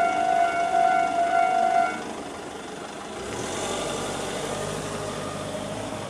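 Japanese railway level-crossing alarm sounding its steady electronic bell tone, which cuts off about two seconds in. A quieter low hum follows.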